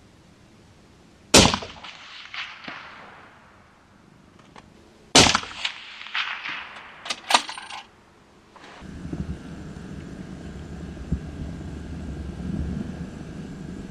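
Two shots from a suppressed .308 Win rifle about four seconds apart, each a sharp crack with a long echoing tail, followed by a few quick clicks. A steady low noise sets in about nine seconds in.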